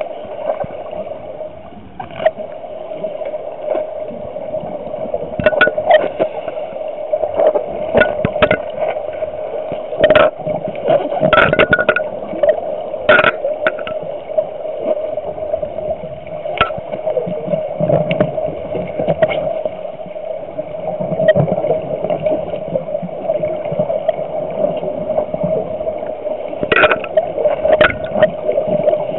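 Underwater sound heard through a compact camera's waterproof housing: a steady hum with irregular knocks and gurgling bubble bursts from scuba breathing, and the loose housing bumping about.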